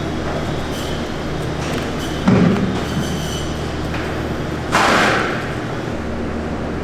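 Steady rumble and hum of machinery in a meat processing plant, with two heavy thuds, about two seconds in and again near five seconds, the second one longer and clattering.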